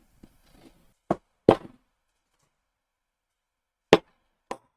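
Ice cream tubs being handled and set down on a table: four sharp knocks, a pair about a second in and another pair near the end.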